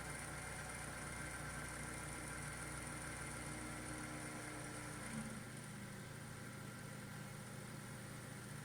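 Faint steady hum with a few held tones and a low rumble that drops away about four to five seconds in.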